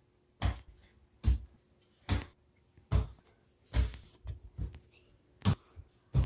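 Footsteps on a hardwood floor: a steady walk of dull thuds, a little more than one a second.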